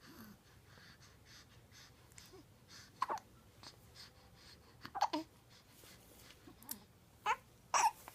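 Hiccups: a run of short, sharp hiccups a second or two apart, the last two close together near the end.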